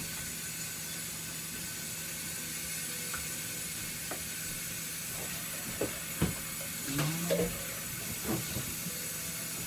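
A steady, even hiss, with a few light knocks and a brief low whine about seven seconds in.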